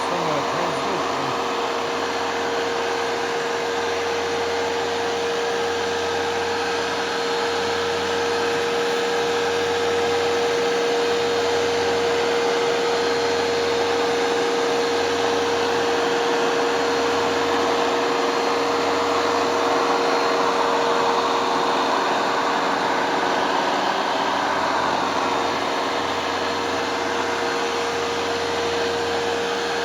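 Hoover Dual Power Max carpet cleaner running steadily: its motor holds one constant pitched hum over the rush of suction air, with no change in speed.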